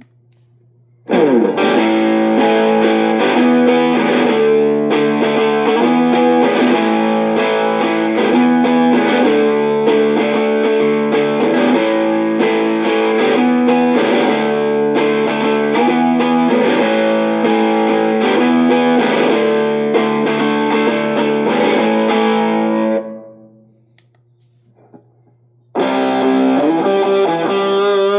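Electric guitar played through a Positive Grid Spark GO mini amp, with an effects-laden, distorted tone: a dense run of held chords and notes that rings out and stops about 23 seconds in, then resumes near the end with bent, gliding notes.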